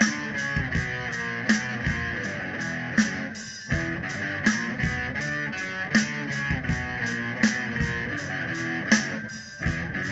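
Instrumental opening of a rock song: strummed guitar over a drum kit keeping a steady beat, with brief breaks about three and a half seconds in and again near the end.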